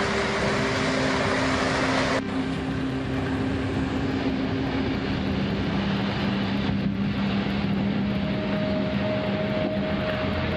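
Heavy excavator's diesel engine running steadily, with a held hydraulic whine over the drone. About two seconds in the sound changes abruptly and the hiss drops away, then the engine keeps running.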